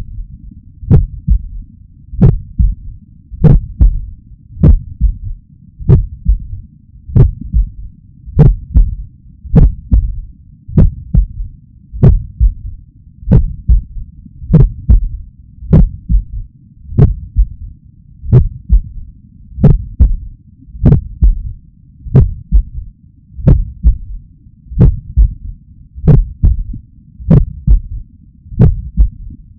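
Heartbeat heard through a stethoscope: slow and regular, about one beat every 1.2 seconds, each beat a low thudding lub-dub with a third low sound (S3 gallop) just after the second. This sign is usually tied to heart failure, but it can be normal in people under 40 and in trained athletes.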